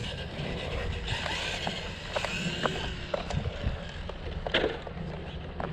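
Steady low rumble of wind on the microphone, with scattered light clicks and taps of footsteps on an asphalt path.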